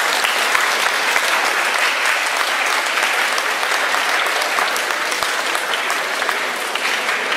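Audience applause: many people clapping together, steady throughout.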